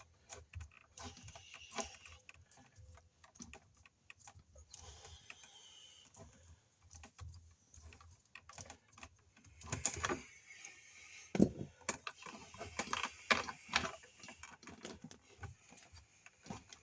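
A plastic wire nut being twisted onto a bundle of stripped copper wires by hand, with the wires handled and bent: irregular small clicks, scrapes and rustles, and a sharper knock about eleven seconds in.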